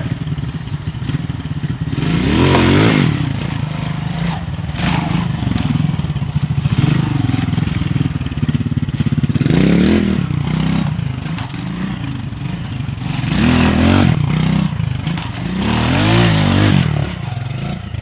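Honda RTL trials bike's four-stroke single-cylinder engine blipped in short, sharp revs as it picks its way over rocks, rising and falling several times.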